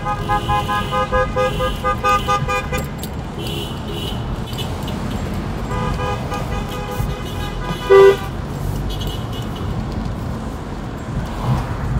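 Car horns honking in quick repeated toots over the low rumble of a car on the road, heard from inside a car; a second run of honking comes about six seconds in, ending in one short, very loud horn blast about eight seconds in.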